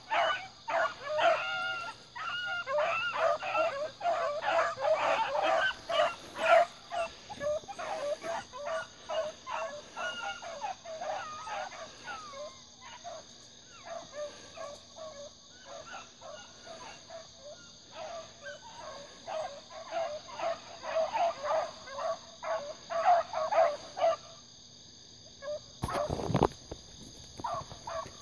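A pack of hounds, young puppies among them, baying and yelping in a fast, overlapping chorus while running a rabbit's trail. The chorus thins out in the middle, picks up again, then dies away, and a short low bump of wind or handling noise comes near the end.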